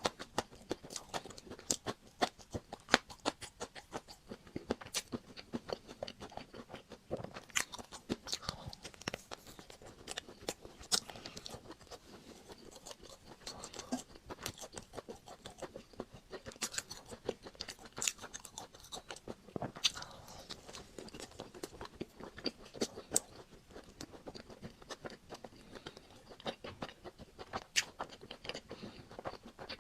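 Close-miked eating of a chocolate-coated Magnum ice cream bar: the crisp chocolate shell crunches and crackles in quick, irregular snaps as it is bitten and chewed.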